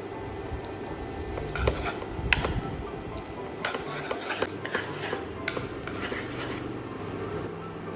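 Utensils clinking and scraping against a pan as food is stirred, in irregular clicks and scrapes that are busiest through the middle of the stretch.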